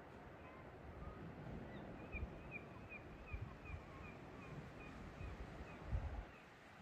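A bird singing a run of about a dozen short, evenly spaced chirps, roughly three a second, starting about two seconds in, over a low rumble of wind.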